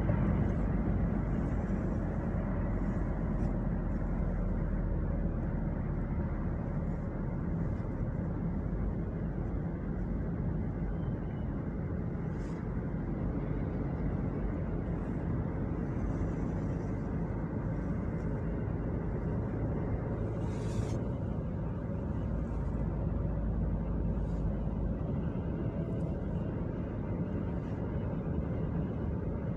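Steady low road and engine noise heard inside a moving car's cabin at highway speed. A brief hiss about two-thirds of the way through.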